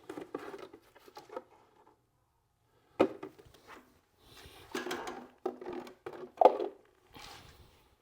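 Empty plastic oil bottles being picked up and set down: a sharp knock about three seconds in, then a run of hollow clatter and knocks, the loudest about six and a half seconds in.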